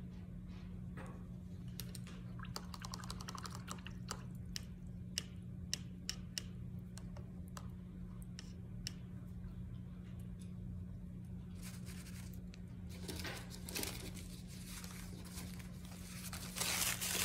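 Quiet room with a steady low hum and scattered small clicks and taps, then brown paper towel rustling and crinkling as it is handled, loudest near the end.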